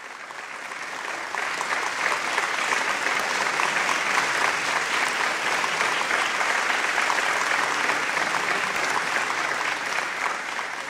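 Audience applauding: the clapping builds over the first couple of seconds, holds steady, then dies away near the end.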